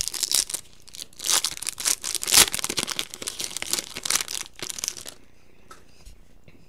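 Foil wrapper of a Topps Chrome baseball card pack being torn open and crinkled by hand, an uneven run of crackling that stops about five seconds in.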